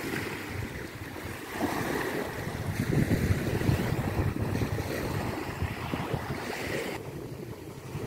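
Small waves lapping and breaking on a sandy beach in a light breeze, with wind gusting on the microphone, strongest about three to four seconds in.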